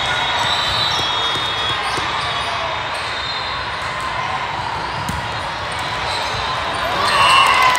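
Echoing din of a large hall full of volleyball games: a steady wash of many voices with scattered ball hits and bounces. About seven seconds in, it gets louder as players shout at the end of a rally.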